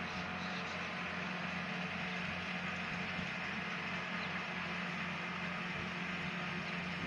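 Rice harvesting machine's engine running steadily, with a constant low hum under an even mechanical whir.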